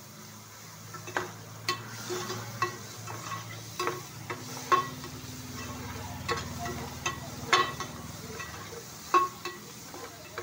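A metal spatula scraping and clinking irregularly against a metal pan while stirring an onion-tomato masala frying in oil, with a light sizzle underneath.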